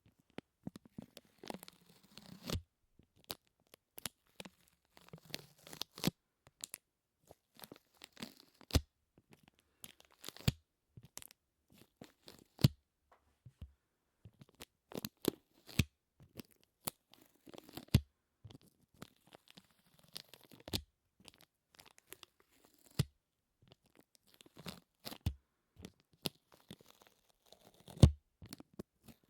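Close-miked sticky surfaces being pulled apart, making crackly peeling sounds in short bursts every couple of seconds, with occasional sharper snaps.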